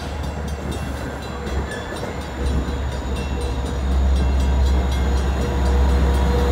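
Long Island Rail Road C3 bilevel passenger coaches rolling past at close range with a steady rumble of wheels on rail. From about midway a deep diesel rumble grows louder as the pushing locomotive at the rear, a DE30AC, draws near.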